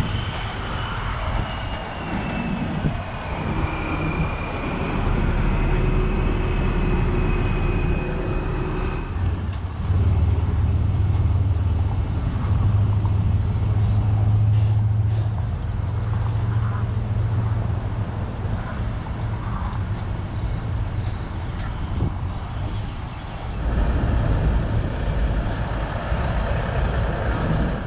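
Diesel semi-truck engine running at low revs, a steady low rumble, as it backs a long boat trailer. A faint high whine in the first several seconds, and the sound shifts abruptly about nine seconds in and again near the end.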